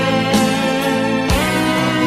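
Instrumental karaoke backing-track music with a guitar prominent, playing held chords with fresh notes struck about a third of a second and about a second and a quarter in.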